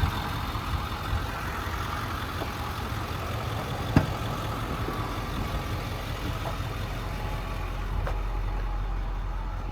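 The 2009 Ford F550's 6.4 Power Stroke V8 diesel idling steadily, with one sharp click about four seconds in.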